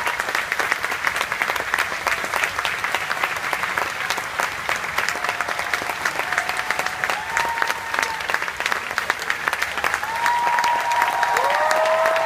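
Large audience applauding steadily, with a few long held calls from the crowd rising above the clapping, more of them from about ten seconds in.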